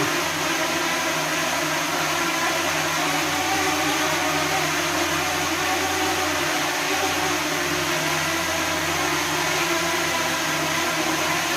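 DJI Mini 2 drone hovering with its propellers whirring steadily, mixed with two electric fans blowing hard at it.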